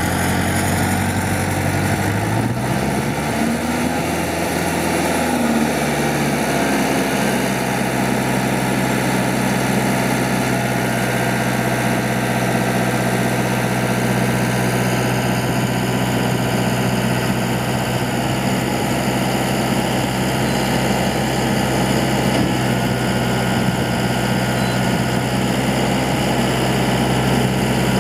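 Branson 6640C tractor's diesel engine just after starting: its speed rises for a few seconds, drops back about six seconds in, then idles steadily.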